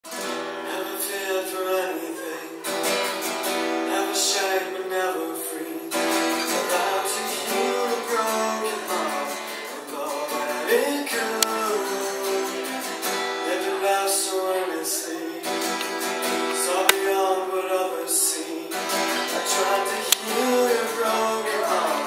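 Acoustic guitar strummed, playing a song's instrumental introduction.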